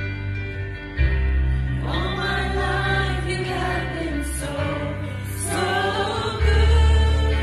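Gospel worship music: a choir singing over a band with heavy bass notes, the bass stepping up about a second in and swelling louder near the end.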